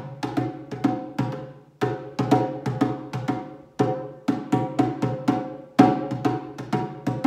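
Djembe struck with bare hands in an even, unhurried rhythm, a few strokes a second in short phrases with brief pauses between them.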